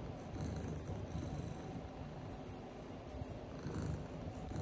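Domestic cat purring close by: a continuous low rumble that swells and fades in rhythm, with three short, very high chirps over it.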